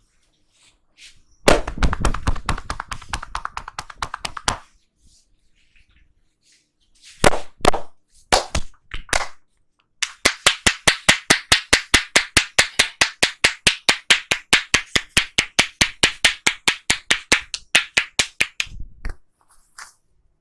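Hands tapping and slapping on a head during an oil head massage: a fast flurry of strikes, a few single slaps, then a long, even run of crisp hand claps at about five a second.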